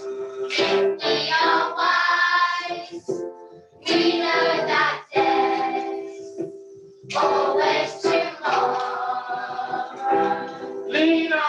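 A class of primary-school children singing a song together as a choir, in phrases of a few seconds with short breaks between them.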